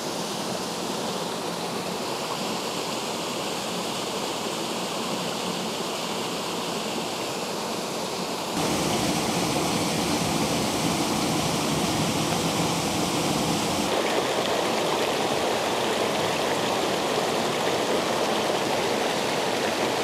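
A small two-chute waterfall rushing steadily into a rocky pool. The sound steps up louder and fuller about eight seconds in, and its tone shifts again around fourteen seconds.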